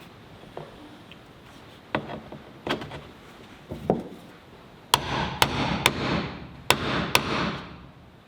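Knocks on wood: a few light taps, then a run of five sharper strikes about half a second apart in the second half, each ringing briefly.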